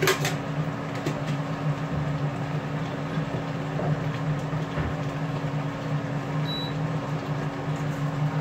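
Steady electric hum from a kitchen appliance's motor, with a couple of sharp clicks right at the start.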